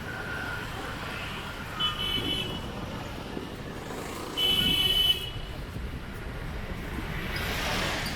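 Street traffic with a vehicle horn honking twice: a short beep about two seconds in and a louder, slightly longer one around four and a half seconds in. Near the end a vehicle passes close by.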